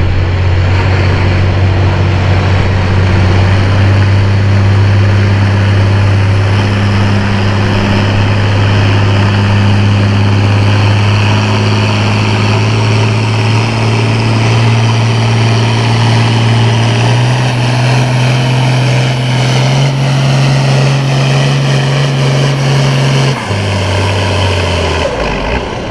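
International Harvester 1066 farm tractor's turbocharged six-cylinder diesel engine running at full throttle under load while pulling the sled. Its pitch climbs slowly and then steps down twice near the end.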